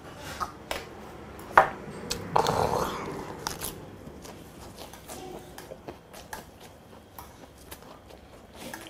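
Clinks and taps of a glass and tableware on a dining table, the sharpest about a second and a half in, followed by a short breathy rush and then fainter scattered clicks of eating.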